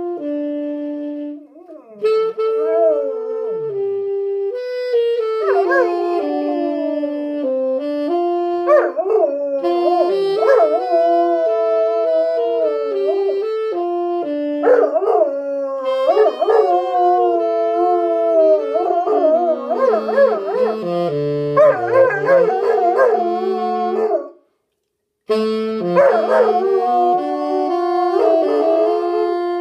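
A saxophone plays slow held notes while a Bernese mountain dog howls along, its wavering howls sliding up and down over the melody. The music breaks off briefly twice, once near the start and once for about a second near the end.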